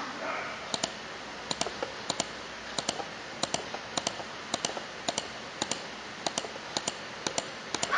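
Computer mouse clicking in a steady series, about two clicks a second, as anchor points are placed one after another with the Photoshop pen tool to trace around a face.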